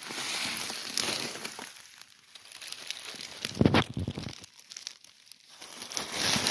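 Dry fallen beech leaves rustling and crackling as they are stepped through and pushed aside by hand, with one louder crunch about three and a half seconds in.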